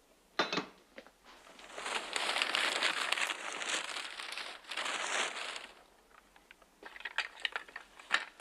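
Paper or packing material rustling and crinkling, a long stretch of it in the middle, then a few lighter crinkles near the end.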